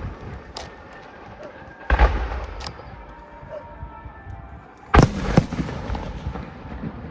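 Fireworks going off: two heavy booms about 2 and 5 seconds in, each followed closely by a sharp crack, with single cracks near the start and in between.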